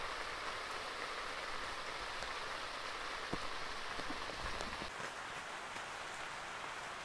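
Heavy rain falling steadily on the tent, heard from inside as an even patter.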